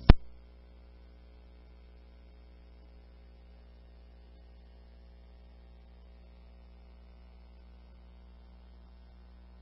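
A single sharp click as a police radio transmission cuts off, then a faint steady electrical hum on the idle recording.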